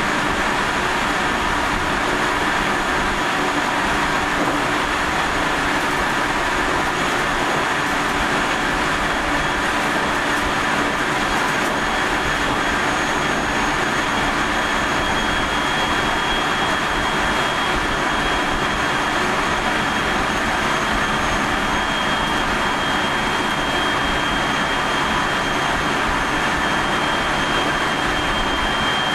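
JR 373 series electric multiple unit car KuMoHa 373-11, with MT68 traction motors, running at speed, heard from inside the car: steady rail and running noise with several steady whine tones, and a higher whine coming in about halfway. This set, F11, is known among the 373s for a strong abnormal running noise.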